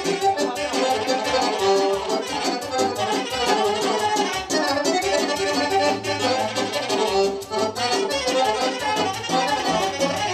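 Romanian folk dance music for a hora, with accordion leading the melody over a steady beat.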